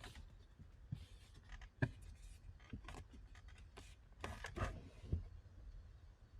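Faint handling noises: scattered rubbing and scraping with light clicks, the loudest a few sharp knocks near the middle and about two-thirds of the way through.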